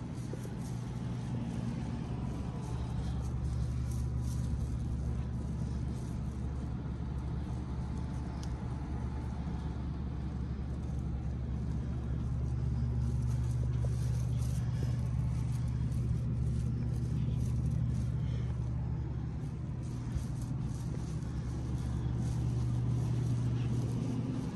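A steady low mechanical drone, unchanging in pitch.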